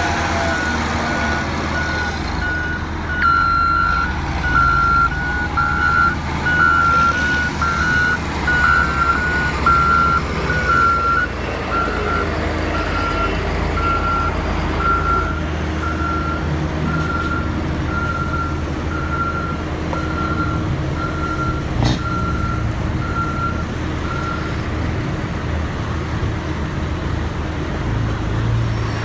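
Reversing alarm of a heavy construction vehicle beeping at a high, even pitch, roughly once a second, over the low rumble of its diesel engine. A second, slightly higher alarm beeps along with it for a while early on, and the beeping stops a few seconds before the end.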